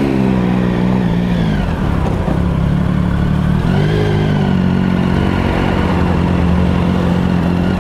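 Triumph Sprint ST 1050's three-cylinder engine running at low revs while filtering through slow traffic, heard from the rider's helmet. The revs dip about two seconds in, pick up again near four seconds, then hold steady.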